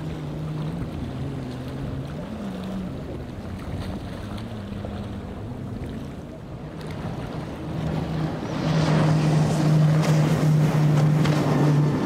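Motorboat engines running steadily over wind and rushing water. About eight seconds in the engine hum and the water noise get much louder as the boat comes closer.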